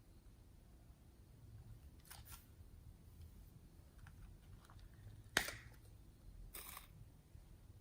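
Faint clicks and short crackles from handling slime and makeup items, with one sharp snap a little past halfway.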